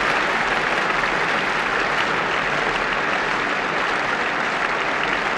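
Theatre audience applauding steadily, a dense, unbroken ovation for the ballerina.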